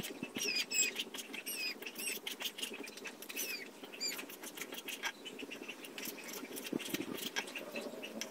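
A kitchen knife cutting raw pork on a wooden chopping block: a run of light taps and clicks as the blade strikes the wood. Quick high-pitched chirps sound over the first half.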